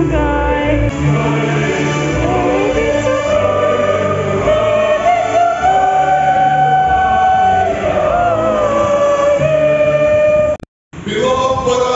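A church congregation singing a hymn together, with long held notes. The sound drops out abruptly for a moment about ten and a half seconds in, then the singing resumes.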